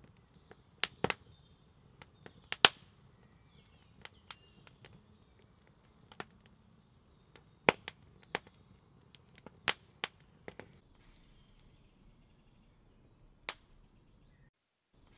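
Wood campfire crackling: irregular sharp pops and snaps from the burning logs, a few of them loud, thinning out to a single pop in the last few seconds.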